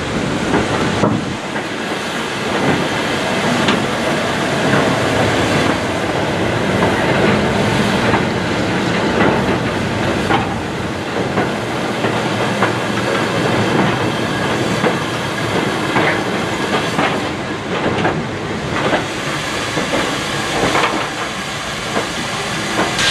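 A goods train of wagons rolling slowly past, their wheels clicking and knocking irregularly over the rail joints, with steam hissing.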